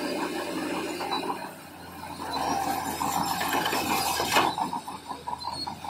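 Crawler bulldozer's steel tracks clanking and squealing in a rapid rattle over the steady hum of its diesel engine, with a louder clatter about four seconds in.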